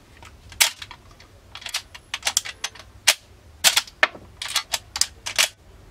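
Marlin 1894 lever-action rifle's action being cycled by hand with the safety on, to unload it: a string of sharp metallic clicks and clacks in small clusters as the lever is swung open and shut.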